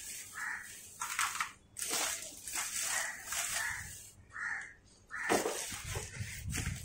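A clear plastic packaging bag crinkling and rustling as the ring light inside it is handled. Near the end this gives way to cardboard box flaps rustling and scraping.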